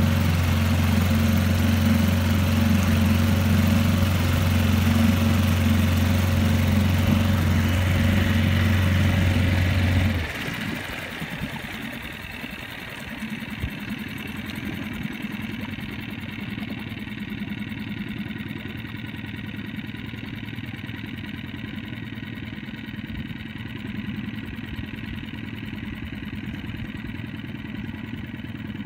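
Boat engine running steadily, then throttled back sharply about a third of the way in, carrying on at a much quieter, steady low hum.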